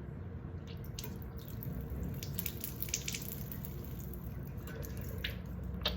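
Saline sinus-rinse water running out of the nose and dripping into a sink, in scattered drips and small splashes.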